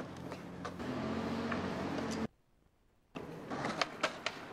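Skateboard wheels rolling on concrete, cutting off suddenly about two seconds in. After a short silence come several sharp clacks of the board popping and striking concrete steps.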